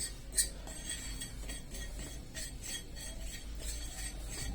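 A spoon scraping and clinking on a tawa as black salt and turmeric are stirred and roasted, in scattered light strokes with a sharper clink about half a second in.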